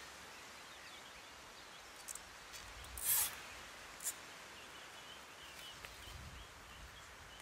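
A plastic cable tie zipped tight through its ratchet in one short rasp about three seconds in, with single sharp clicks about a second before and after it, over a faint steady outdoor background.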